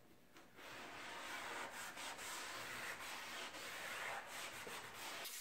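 Gray Scotch-Brite pad, wet with scuffing gel and water, being rubbed by hand over a car's painted body panel: a steady scrubbing that starts about half a second in. The paint is being scuffed to prepare the panel for painting.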